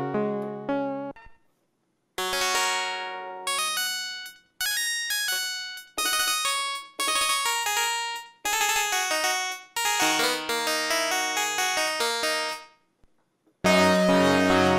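Korg Minilogue analog polyphonic synthesizer playing a harpsichord-style patch: a run of chords, each with a sharp plucked attack that dies away quickly. After a short silence near the end, a louder, fuller sustained patch comes in.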